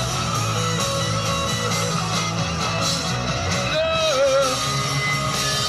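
Soundboard recording of a live rock band: electric guitars, bass and drums playing on, with a wavering, wordless sung line coming in about four seconds in.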